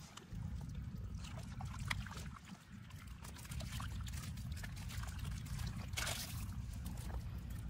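Water trickling and sloshing with small clicks and a short splash about six seconds in, over a steady low rumble.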